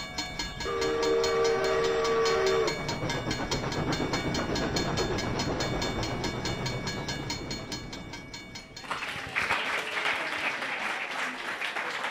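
Train whistle sounding a steady chord for about two seconds near the start, over a train running on the rails with an even, rhythmic clatter. About nine seconds in the sound changes to a brighter hiss.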